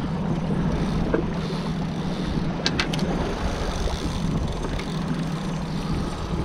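Boat motor running steadily at trolling speed, with wind and chop on open water. A few short, sharp clicks come about two and a half to three seconds in.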